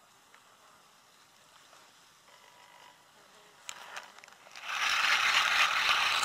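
A few light clicks, then a loud, steady whirring rush for about a second and a half that stops abruptly: a spinning reel being wound in after the strike, as a roach takes bread bait and pulls the float under.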